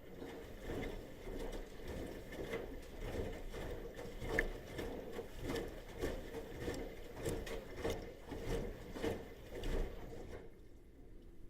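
Bosch washing machine in its wash cycle: the drum turns with many irregular knocks and thuds for about ten seconds, then stops about a second before the end.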